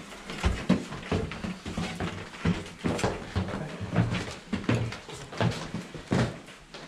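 Footsteps of several people climbing a staircase: a run of irregular thuds and knocks, several a second.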